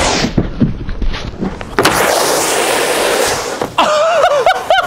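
Snowboard base sliding and scraping over plastic dry-slope matting on a quarter pipe, in two long hissing runs with a few knocks between them. Near the end a person shouts with a wavering pitch.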